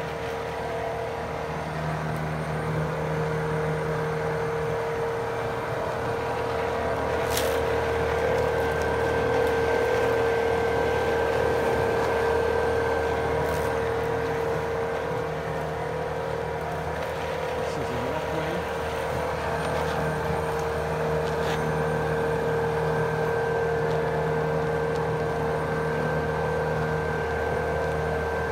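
Snowbo robotic snow plow's drive motors running as it travels along a snowy walkway: a steady whine, with a lower hum that fades in and out as it moves. A few light clicks.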